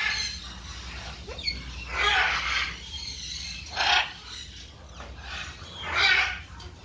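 Parrots squawking: four loud, harsh screeches about two seconds apart.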